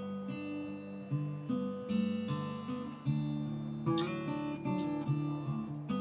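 Background music: an acoustic guitar picking slow chords, a new chord about every second.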